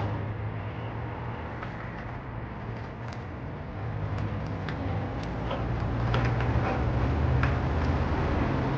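2013 Toyota Yaris engine running at idle, a steady low hum that grows louder over the second half, with scattered light ticks and clicks.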